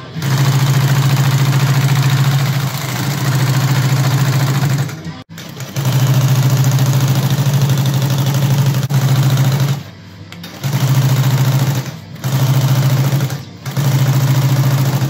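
Industrial sewing machine stitching heavy 8oz canvas, running in a series of bursts with short stops between them, its motor humming under a fast, even needle rhythm.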